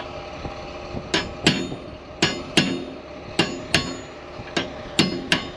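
Hammer striking a steel pin in an air seeder cart's hitch to drive it out so the cart can be unhooked: sharp, ringing metal-on-metal blows, mostly in pairs, starting about a second in.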